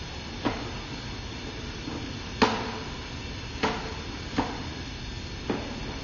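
Sewer inspection camera and its push cable being fed along a drain line: five sharp knocks at irregular intervals, each with a short ring, over a steady hiss.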